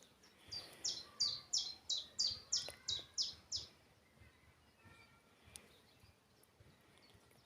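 A songbird singing a run of about nine high notes, each falling in pitch, roughly three a second, lasting about three seconds.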